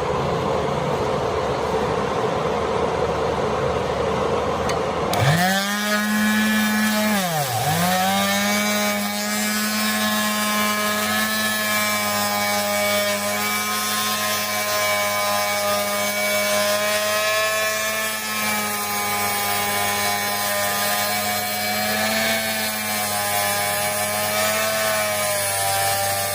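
Woodworking power tool's electric motor whining steadily as it cuts wood. About seven seconds in, its pitch drops sharply and climbs straight back, then holds with slight wavering. The first five seconds are a noisier, unpitched rushing sound that cuts off abruptly when the whine starts.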